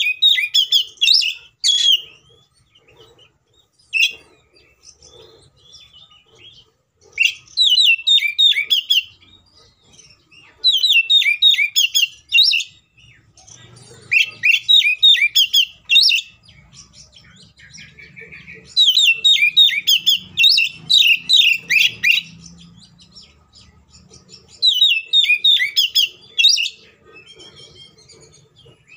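Male oriental magpie-robin singing: about six loud phrases of fast, rapidly repeated whistled notes, each a second or two long, with short pauses between them.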